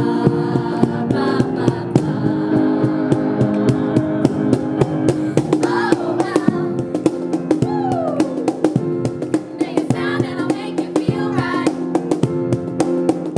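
Band music: a singing voice over guitar and drums.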